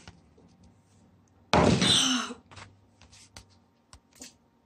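A person's single loud, rough throat noise, under a second long, just after chugging a sour smoothie. A few faint light knocks follow.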